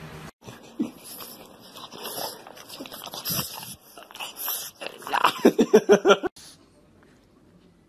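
Pug snorting and sniffing right up against the microphone, ending in a quick run of about seven grunts that cuts off suddenly.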